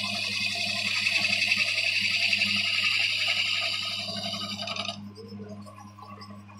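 Electric woodworking machine cutting wood: a steady hiss of the cutter over a low motor hum. The cutting stops abruptly about five seconds in while the motor keeps humming.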